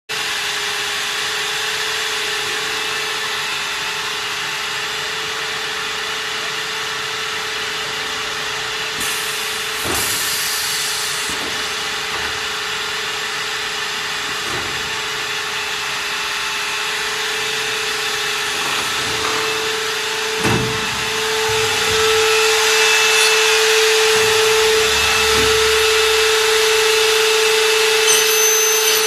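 Automated CNC aluminium profile machining line running: a steady machine hum and whir, with a few sharp knocks, getting louder about two-thirds of the way through.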